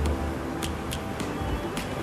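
Background music with percussive hits.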